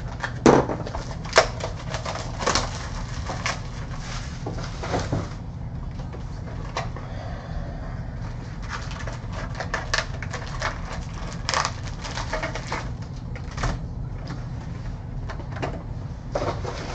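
Cardboard trading-card box of 2012 Panini Prizm football being opened, with its packs and cards handled on a table. It gives irregular clicks, taps and rustles throughout, over a steady low hum.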